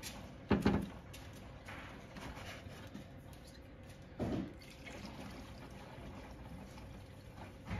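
Coolant pouring from a plastic jug into a laser water chiller's reservoir: a steady trickle with two louder glugs, about half a second in and about four seconds in.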